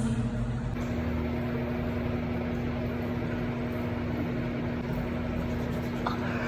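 A steady mechanical hum with a constant low tone, like a fan or motor running.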